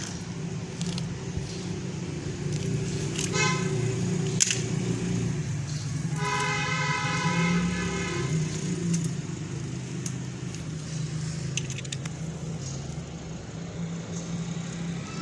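Road traffic with a steady engine rumble. A vehicle horn toots briefly about three seconds in, then a longer horn blast of about two seconds follows around six seconds in, with small scattered clicks.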